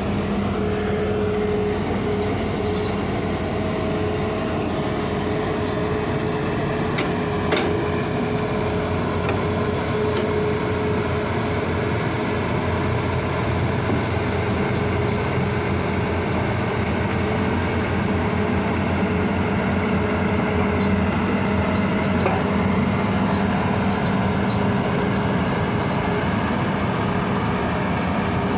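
Hitachi ZX210 hydraulic excavator running steadily while it digs, with its diesel engine and hydraulics under load and a steady whine over the engine. There is one sharp knock about seven and a half seconds in.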